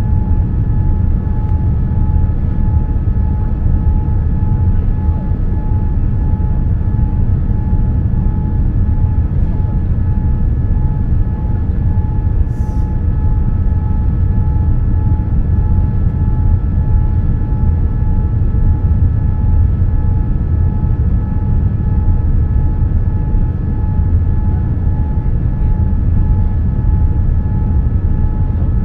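Steady cabin noise inside a Boeing 787-9 descending on approach with its flaps extended: a deep rumble of engines and airflow with a few steady whining tones on top.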